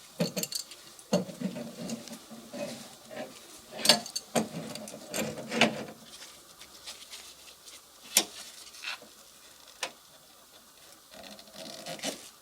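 Hand tools working on an air conditioner being dismantled: irregular clicks, knocks and scraping of metal and plastic parts, busiest in the first half, then a few single clicks and a short scrape near the end.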